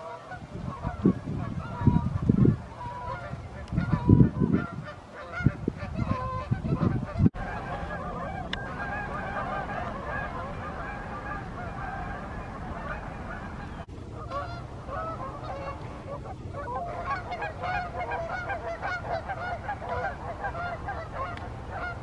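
Canada geese honking in flight: at first a few scattered honks, broken by several loud low rumbling bursts, then a dense chorus of many geese honking over one another from about seven seconds in, with a brief break near fourteen seconds.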